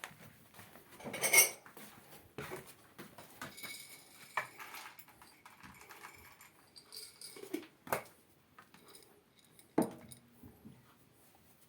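A few irregular clinks and knocks, the loudest about a second in, with a faint ringing after some of them.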